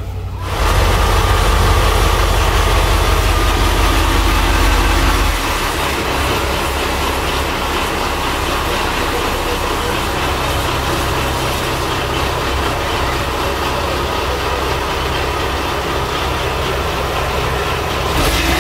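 Slow boat's inboard engine running loud and steady, heard up close at the open engine compartment. It is a little quieter after about five seconds.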